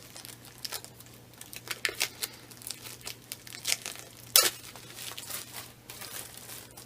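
Plastic shrink-wrap being handled and peeled off a box, crinkling and tearing in irregular crackles, with one sharper snap about four seconds in.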